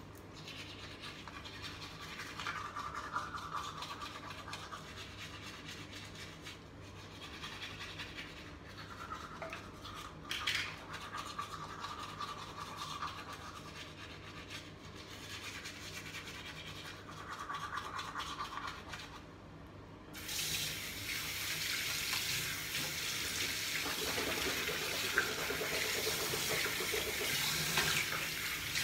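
A manual toothbrush scrubbing teeth in short, uneven bouts. About two-thirds of the way through, a tap is turned on and water runs steadily into the sink.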